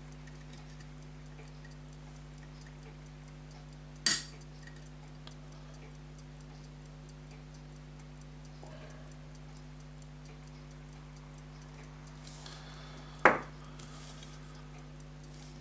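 Two sharp metallic clicks from a small tool working on a silver pocket watch case, about nine seconds apart, over a steady low hum.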